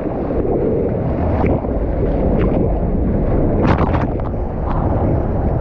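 Loud, continuous rush of breaking surf and churning water heard from a waterproof action camera at water level, with wind buffeting the microphone and a sharper splash about three and a half seconds in.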